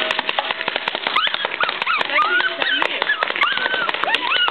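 Paintball markers firing in rapid, irregular pops, with high yelping cries that rise and fall over them from about a second in.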